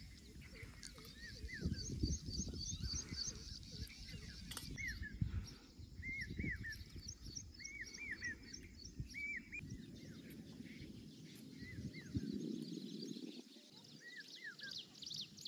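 Birds calling in open farmland: repeated short arched chirps and quick series of high, thin notes, scattered throughout, over a low rumble.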